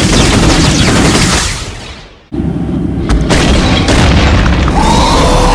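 Loud boom sound effects: a roaring blast that dies away over about two seconds, then a second loud rumble that starts suddenly and keeps going.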